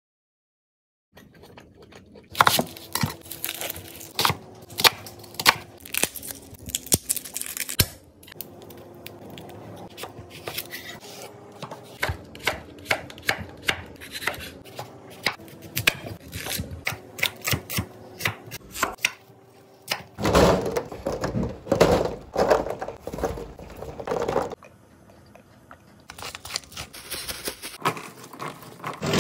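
Large kitchen knife cutting vegetables on a wooden cutting board: a long run of sharp knocks, often several a second, including slicing through a tomato. Near the end a denser stretch of rustling and scraping as cut vegetables are handled on a pan.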